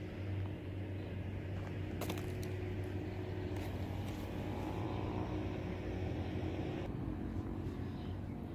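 Steady low rumble of outdoor background noise, with a few faint clicks about two and three and a half seconds in.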